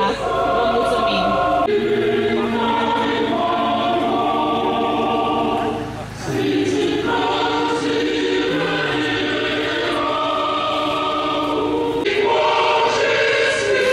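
A choir singing slow, sustained chords, the harmony changing every second or two, with a short break about six seconds in.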